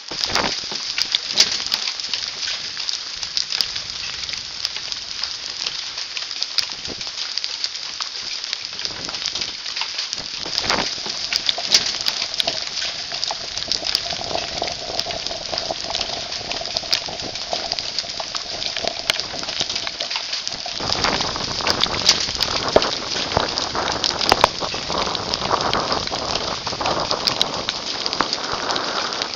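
Hailstorm: hailstones and rain pelting the forest floor and leaves, a steady hiss full of sharp clicks from individual stones striking. About two-thirds of the way through the storm grows heavier and louder.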